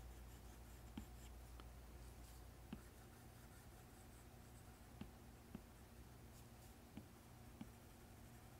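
Faint strokes and taps of an Apple Pencil tip on an iPad Pro's matte screen protector: several soft ticks, irregularly spaced, over low room hiss.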